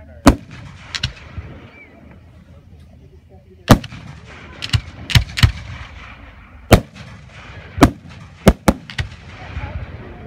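Aerial firework shells going off: about ten sharp bangs at uneven intervals, two near the start and a quick run of them through the second half, some only a fraction of a second apart.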